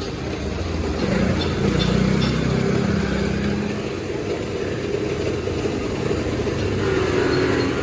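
A motor or engine running steadily, a low hum with a held tone that comes up about a second in and shifts higher near the end.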